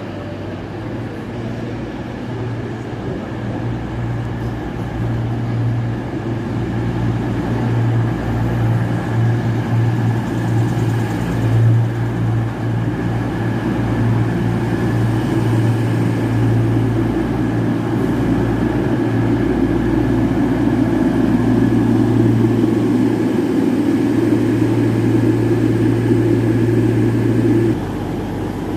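A train running close by with a steady low hum that slowly grows louder, then drops abruptly near the end.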